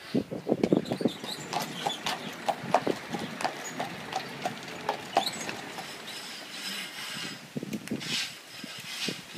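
Horse's hooves clip-clopping on a lane as a horse-drawn carriage goes by, a quick run of sharp knocks.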